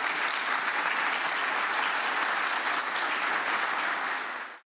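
Conference audience applauding at the end of a talk, a steady dense clapping that cuts off abruptly near the end.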